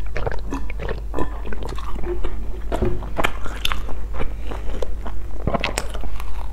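Close-miked eating sounds of a person biting and chewing a chocolate-filled bread bun: a run of irregular wet clicks and bites over a steady low hum.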